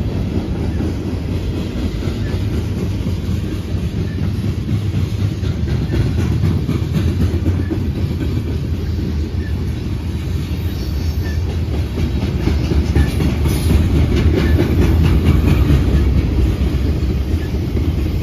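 Freight cars rolling past on steel rails: tank cars, covered hoppers and boxcars making a steady rumble, with wheels clicking over the rail joints. It grows a little louder about two-thirds of the way through.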